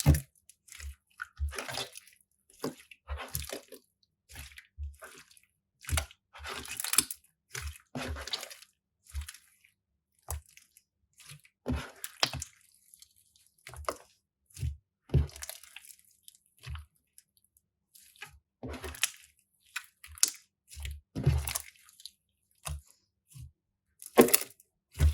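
Crunchy slime being squeezed and pressed by hand, giving short bursts of crackling and squishing about once every second or two, with quiet gaps between.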